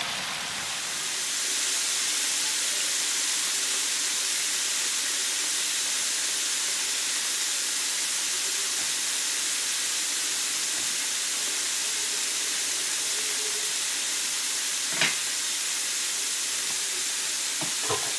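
Chicken wings deep-frying in an electric deep fryer: the oil bubbles and sizzles with a steady hiss that grows a little louder about two seconds in. A brief sharp click comes about fifteen seconds in and another near the end.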